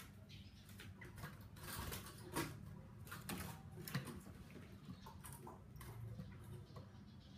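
Chinese hwamei hopping about a bamboo cage: irregular light taps and clicks of its feet landing on the perches and bars, over a faint steady low hum.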